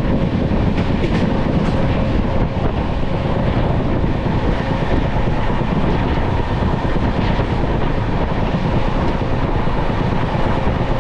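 Passenger train running along the track: a steady, loud rumble of wheels on rails.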